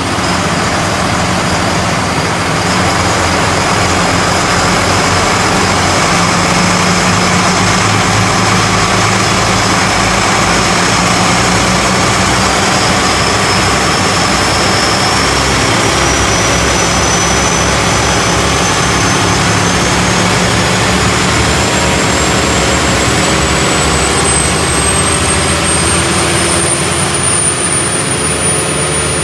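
Volvo Penta TAMD74 EDC marine diesel engines running loud and steady under way, heard from the open engine-room hatch. A thin high whine above the engine note climbs slowly in pitch through the second half.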